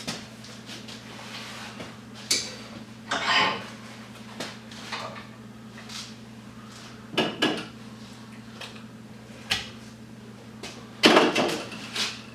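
Scattered clicks and clinks of hand tools and brass pieces as the plastic is cut away from plug pins, with a louder clatter of several knocks about eleven seconds in. A steady low hum runs underneath.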